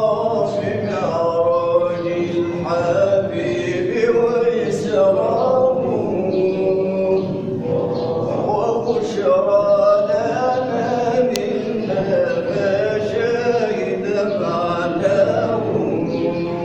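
Sufi dhikr inshad: men's voices chanting and singing a melodic devotional line, with pitch gliding and phrases following one another without a break.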